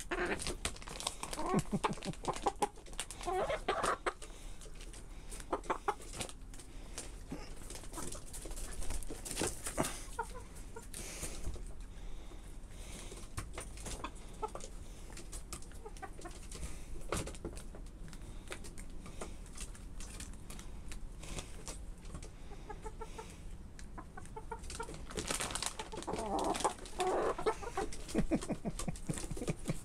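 Hens clucking while they peck meat scraps from a hand, the clucks coming in clusters about a second in and again near the end, with many short sharp taps from the pecking.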